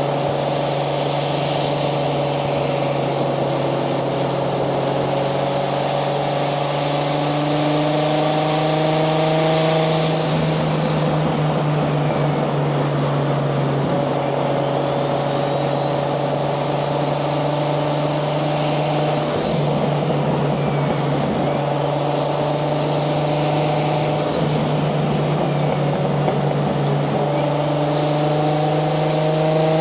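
Single-turbo 1JZ-GTE VVTi inline-six in a Nissan 240SX running on a steady cruise, with a high turbo whistle that climbs and falls several times as the throttle is worked. The longest climb, rising steadily over the first ten seconds, cuts off sharply when the throttle is lifted.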